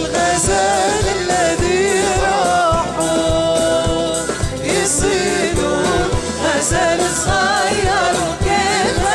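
A woman singing a traditional Jordanian song with ornamented, wavering melody lines, accompanied by a live Arabic ensemble of violins, keyboard and hand drums keeping a steady beat.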